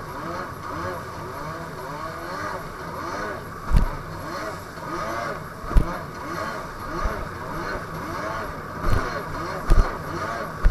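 Two-stroke jet ski engine running under way, its pitch rising and falling over and over as the craft rides over the chop. A few short, low thumps break in now and then.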